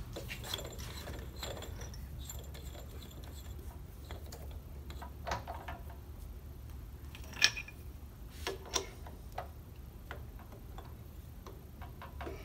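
Small metal clicks and clinks of a twist drill being swapped in a drill press chuck and the chuck being tightened with its key. The loudest clink comes about seven and a half seconds in. A steady low hum runs underneath.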